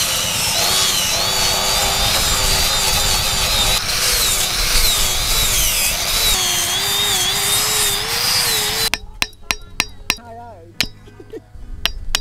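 A power tool cutting wood, its motor pitch wavering up and down under load; it stops about nine seconds in, and a series of sharp knocks follows.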